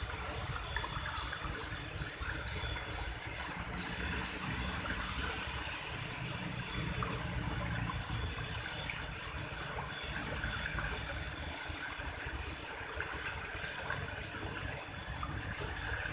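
River water running steadily, with a series of short high chirps from a small animal repeating about two or three times a second for the first few seconds and briefly again later.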